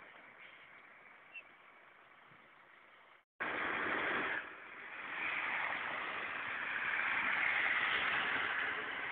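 Roadside traffic noise, a steady hiss with no clear engine note. It is faint at first, breaks off at a cut about three seconds in, then comes back louder and swells for a few seconds.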